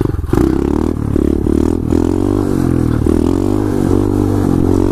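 2015 SSR 125cc pit bike's single-cylinder four-stroke engine running hard under throttle during a wheelie, its pitch rising and falling as the throttle is worked.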